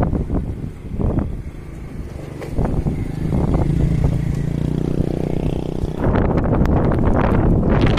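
Wind buffeting the microphone. A small engine hums for a few seconds in the middle, rising in pitch before the wind covers it again.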